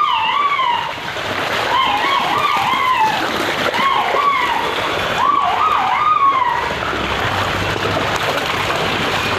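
Water splashing and sloshing in a steady rush. Over it, a high wavering wail rises and falls in four short bursts.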